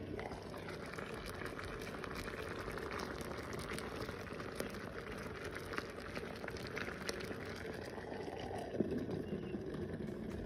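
Water boiling on the heating plate of an electric egg cooker: a steady hiss with many small crackles and pops. The water has reached the boil and is making the steam that cooks the eggs.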